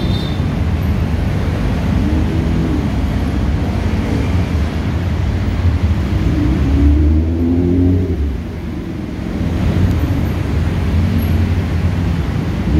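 Busy city road traffic: engines running and vehicles passing close by, loudest about seven seconds in as one goes past, then easing briefly before building again.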